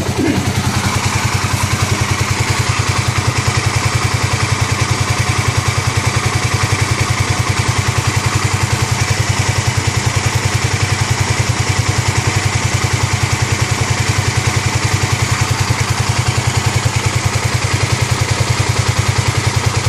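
Single-cylinder four-stroke engine of a 2009 Kawasaki KLX250S, freshly rebuilt with a 300 big bore kit, idling steadily with an even beat while it warms up after its first start.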